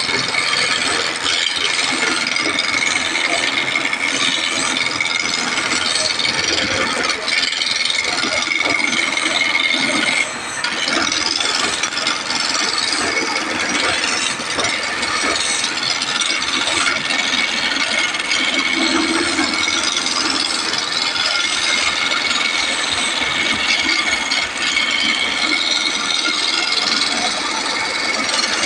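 A tool scraping or cutting wood without pause: a dense, rapid rattling rasp with a steady high whine underneath.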